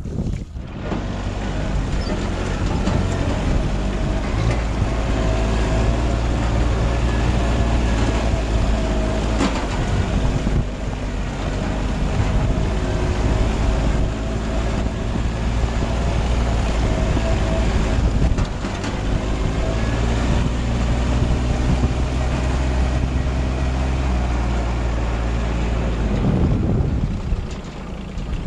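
An engine running steadily at a constant speed, with a few brief knocks; it fades out near the end.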